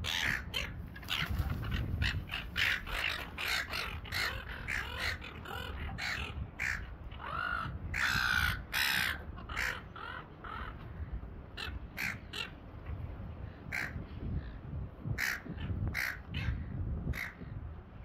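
A flock of gulls calling: many short squawks in quick succession, with a run of longer calls about eight seconds in, then single calls every second or so.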